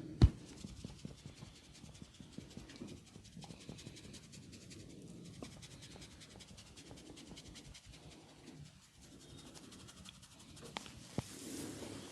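Hands rubbing and working a person's hair and scalp in a head massage, with a sharp crack about a quarter of a second in, then a continuous run of fine crackles from hair cracking. The rubbing grows a little louder near the end.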